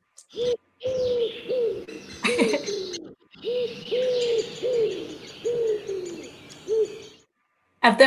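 Recorded wood pigeon cooing: two phrases of low hoots, each note rising and falling in pitch, with a short break between the phrases about three seconds in.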